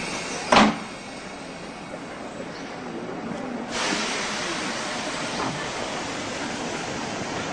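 Train noise: a sharp knock under a second in, then a steady rushing hiss that swells up about halfway through and holds.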